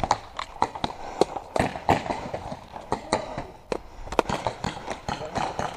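Irregular string of sharp pops and knocks, two or three a second: paintball markers firing during play.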